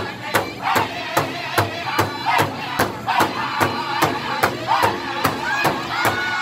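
A powwow drum group singing loud, high-pitched unison vocals over a big hide powwow drum struck together by several beaters in a steady beat, about two and a half strokes a second.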